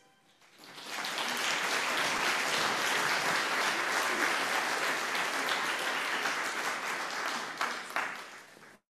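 Congregation applauding: the clapping builds over the first second, holds steady, then cuts off just before the end.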